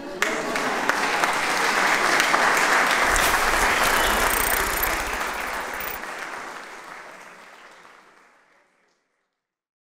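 Audience applauding: the clapping starts suddenly, is loudest about two to four seconds in, then fades away over several seconds.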